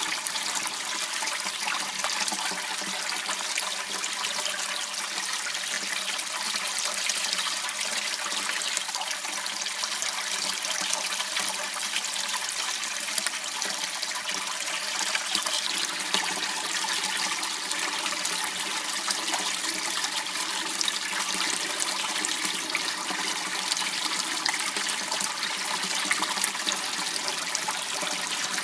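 Water flowing steadily through a small channel, making a constant rushing hiss.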